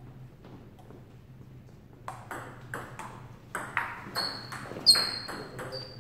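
Table tennis rally: the ball clicks sharply off paddles and table in quick succession, about four hits a second, starting about two seconds in. Brief high squeaks come in near the end.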